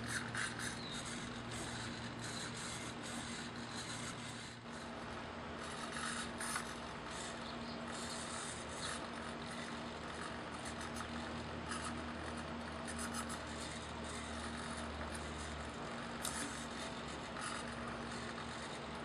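Small RC servos of a pan-tilt camera mount whirring in short, irregular bursts as the camera head is panned and tilted, over a steady low hum.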